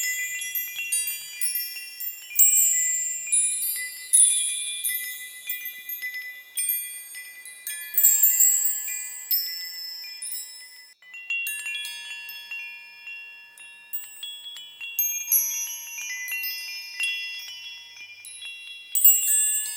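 High-pitched metal chimes struck at random, irregular moments, the strikes overlapping and each ringing on, some much louder than others.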